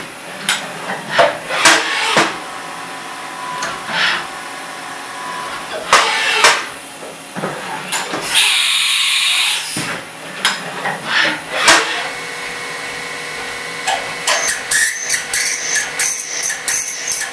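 CNC milling machine working: a burst of hissing, scattered clunks and clicks, then the spindle running with a steady whine from about twelve seconds in. Near the end the end mill cuts the aluminium part with a rapid ticking chatter and high ringing.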